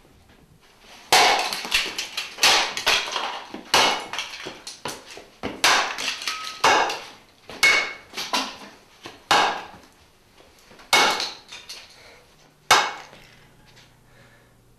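A baseball bat repeatedly striking something on a floor, about ten hard blows at irregular intervals, each followed by a short clatter of smaller knocks. The last and sharpest blow comes near the end.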